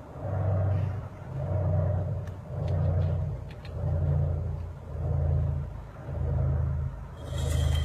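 Marching band's pre-show opening: a deep, pitched drone that throbs in slow, even swells about once a second. A bright, hissing swell comes in near the end.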